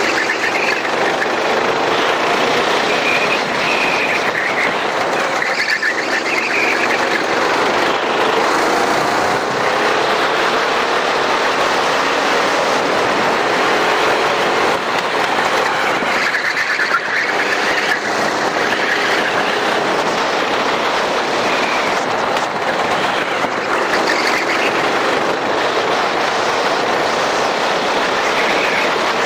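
Racing go-kart engine running hard, its pitch climbing and falling again and again as the kart speeds up and slows, under a loud steady rushing noise.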